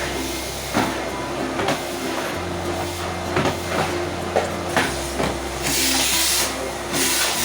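Vacuum cleaner running steadily, with scattered knocks and stronger bursts of hiss near the end.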